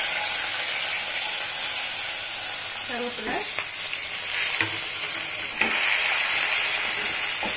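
Shallots and curry leaves sizzling steadily in hot oil with cumin seeds in a pan, stirred with a wooden spatula toward the end.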